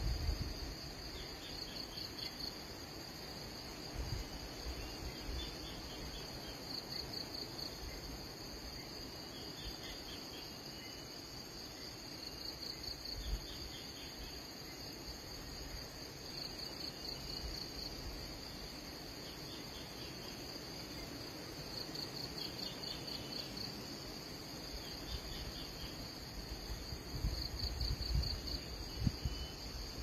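Insects trilling steadily at a high pitch, with a pulsing stretch about every five seconds, and occasional low rumbles underneath.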